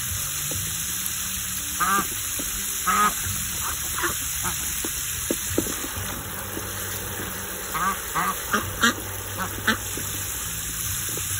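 Domestic ducks quacking in short calls, a few around two to four seconds in and a busier run around eight to ten seconds in, over the steady hiss of a water spray falling into a plastic tub.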